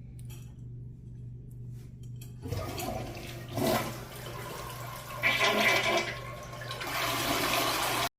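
Toilet flushing: quiet at first, then a rush of water starts about two and a half seconds in, surges louder twice and keeps running steadily.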